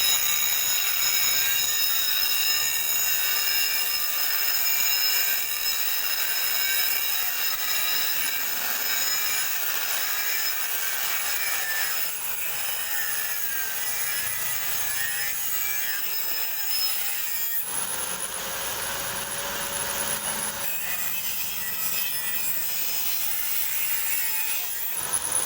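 Electric arc welding: the arc's steady crackling hiss with a thin high whine, its texture changing about two-thirds of the way through.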